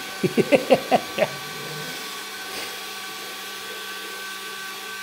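Cordless drill running steadily with a cleaning attachment spinning inside the end of an exhaust pipe, polishing the pipe's inside. A quick run of short, louder sounds comes in the first second and a half.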